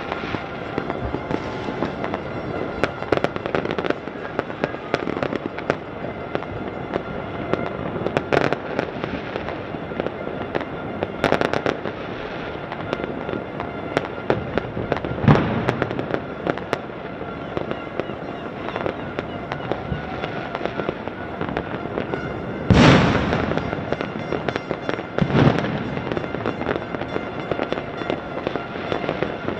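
Many fireworks and firecrackers going off across a city at once: a constant scatter of distant bangs and crackling. A few louder blasts stand out, the biggest about three-quarters of the way through and another a couple of seconds later.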